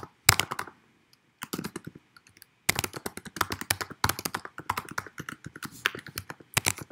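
Typing on a computer keyboard: quick runs of key clicks, broken by a couple of short pauses in the first few seconds, then steady fast typing.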